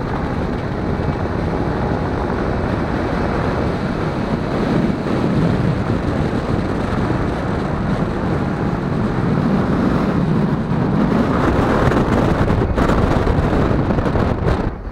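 Wind buffeting the microphone: a loud, steady rumbling rush with no clear tone, swelling now and then and easing just at the end.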